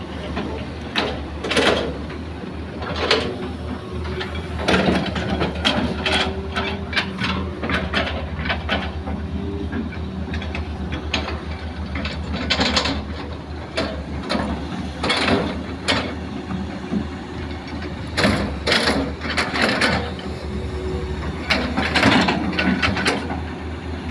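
Hitachi hydraulic excavator digging soil: its diesel engine runs steadily under load, with repeated irregular clanks and scrapes as the bucket works the earth.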